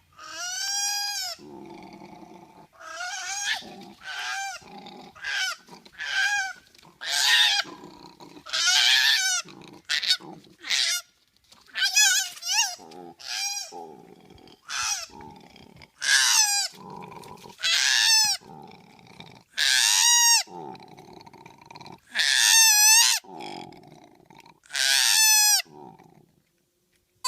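Koala calling over and over: more than a dozen loud, high-pitched squealing cries, each under a second, with lower grunting between them.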